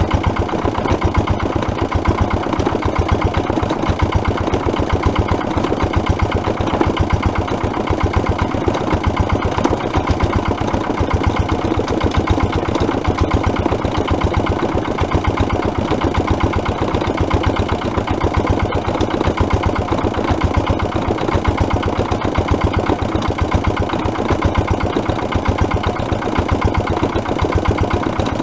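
Lister LR1 single-cylinder diesel stationary engine running steadily at its governed 900 rpm, with an even beat of firing strokes.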